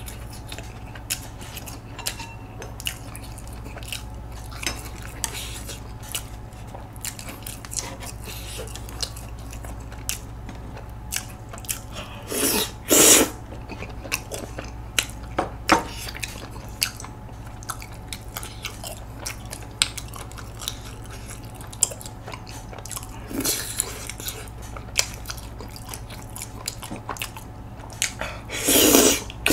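Close-up eating sounds of tteokbokki: chewing and small clicks of wooden chopsticks against a plate throughout. There are two loud slurps, one about halfway and one near the end, with a fainter one between them.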